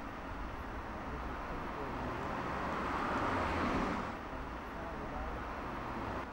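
Outdoor street ambience with traffic noise: a car passes, swelling about two seconds in and fading near four seconds, over a low steady rumble.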